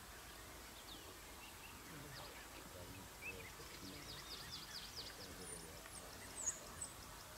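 Quiet bush ambience with faint, scattered bird chirps: a quick run of short chirps about halfway through and two sharper high calls near the end, over a faint low murmur.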